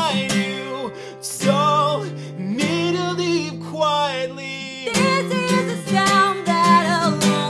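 Unplugged indie folk song: an acoustic guitar strummed while a man and a woman sing long, held notes together, with a brief dip in the sound about a second in.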